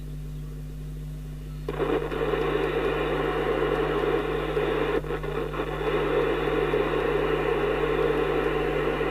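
Harrier CBX CB radio receiving static and interference noise through its speaker. The noise jumps up suddenly under two seconds in and breaks briefly about five seconds in as the channel is changed. The repairer puts the noise down to foreign interference on the band.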